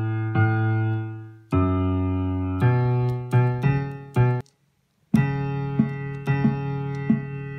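Piano-like chords played on a Teenage Engineering OP-1 synthesizer: a couple of held chords, then a quick run of short stabbed chords that cuts off abruptly to silence for about half a second, after which the chords resume.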